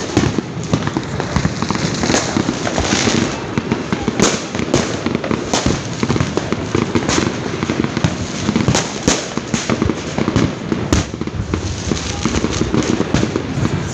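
Fireworks going off continuously: a dense, unbroken barrage of bangs and crackling explosions, many overlapping.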